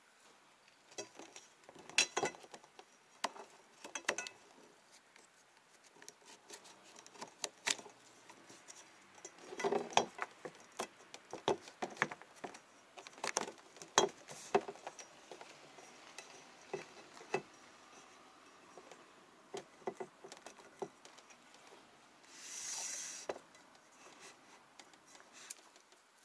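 Scattered clicks, taps and light clatter of hand work, as wooden strips and aluminium pipes are handled and set on fibreglass hulls. A brief rasp comes a few seconds before the end.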